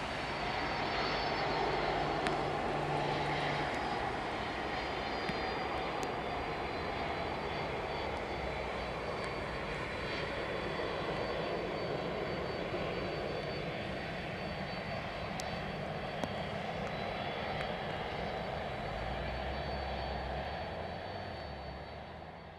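Boeing 777-200ER's Rolls-Royce Trent jet engines at taxi power as the airliner taxis away, a steady rush with a thin high fan whine. It fades out near the end.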